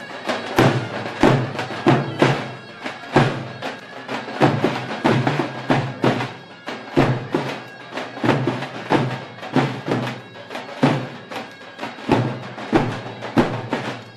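Davul-zurna music: several davul bass drums beating a driving rhythm, heavy mallet strokes with lighter stick taps between, under a reedy zurna shawm melody.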